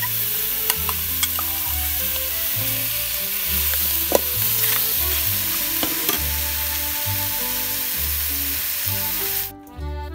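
Chicken pieces and curry paste sizzling as they fry in an aluminium pot, with a ladle scraping and clicking against the pot as it is stirred. The sizzling cuts off shortly before the end.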